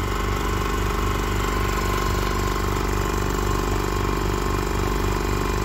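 Small electric motor with its cooling fan running steadily, a steady hum with a low, even pulsing. It has just been refitted and is running normally.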